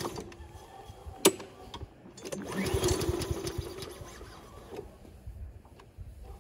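Pull-cord start attempt on a Honda walk-behind lawn mower's small four-stroke engine: a sharp click a little after one second, then a short whirring crank about two and a half seconds in that dies away without the engine catching.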